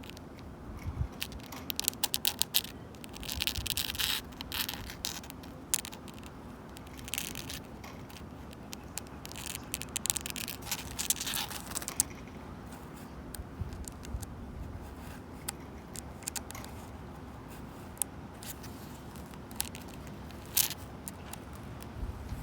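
Long natural fingernails scratching and clawing at a wooden bench: irregular runs of short scrapes and sharp ticks, busiest a couple of seconds in and again around halfway, over a steady low rumble of wind.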